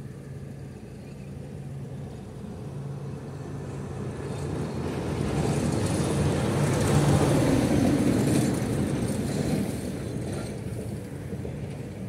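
A MAN dump truck's diesel engine and tyres passing close by. It grows louder to a peak around seven to eight seconds in, then fades away.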